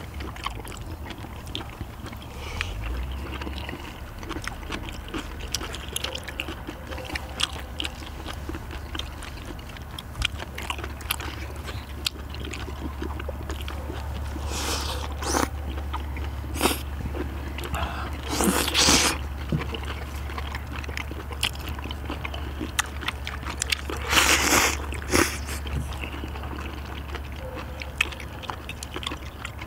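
Several people eating seafood ramen: chewing, with many small clicks of chopsticks on metal plates and a few louder noodle slurps, the loudest about two-thirds of the way through.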